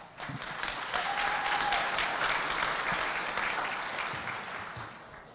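Audience applause: many hands clapping, building quickly, then dying away toward the end.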